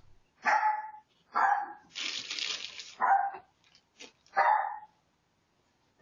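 A dog barking four times, short single barks about a second apart, with a second of hiss between the second and third bark.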